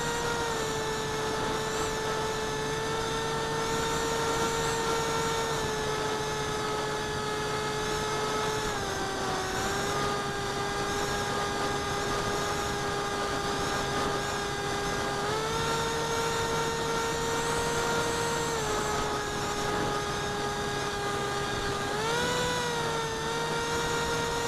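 Electric motor and propeller of a small flying wing in flight, heard from a camera strapped to the plane: a steady whining hum over a rush of air. Its pitch steps down twice, rises, drops, and rises again as the throttle is changed.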